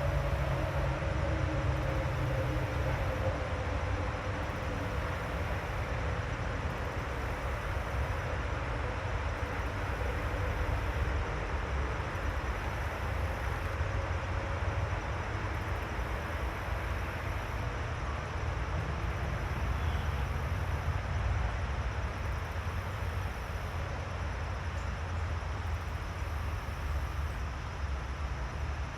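Outdoor ambience made up of a steady low rumble. A faint hum slowly falls in pitch and fades away over the first half, as a distant vehicle passing would.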